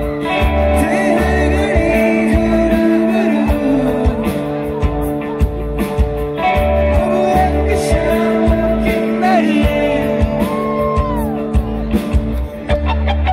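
Live rock band playing: acoustic and electric guitars, bass and drums with a steady beat, under a singing voice with held, sliding notes.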